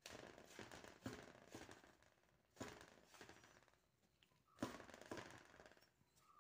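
A hand mixing dry wheat flour in a steel bowl: three faint bursts of rustling and scraping as the fingers rub the flour against the metal, about two seconds apart.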